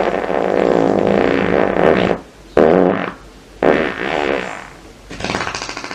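A run of fart sounds. The first is long and buzzy, about two seconds. Two shorter ones follow, and near the end comes a rapid fluttering one of about eight pulses a second.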